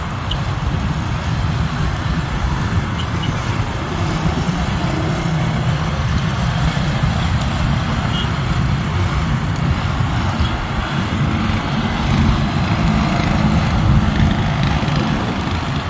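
Steady engine noise: a low rumble with an even hiss over it, holding at a constant level throughout.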